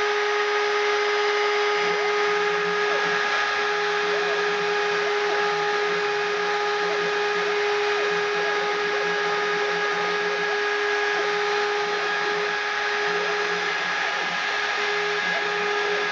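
Desktop CNC milling machine running, its spindle motor giving a steady high whine over a hiss, with a lower hum that comes and goes.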